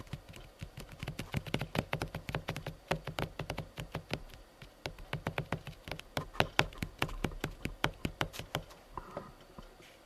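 A fast, irregular patter of sharp taps and clicks over a low steady hum, dying away near the end.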